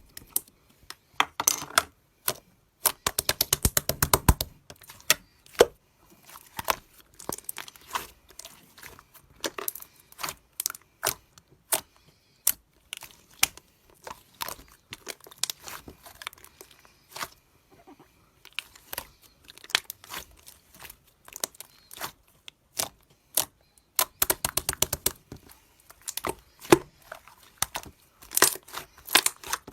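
Clear slime being squished and stretched by hand, giving irregular sharp clicks and pops, with fast dense runs of them a few seconds in and again near the end.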